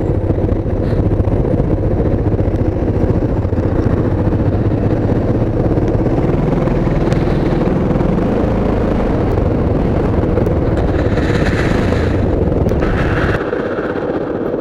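Hyosung GT650's V-twin engine running while the motorcycle is ridden, a steady low rumble that rises gently in pitch about halfway through. The rumble drops off suddenly near the end.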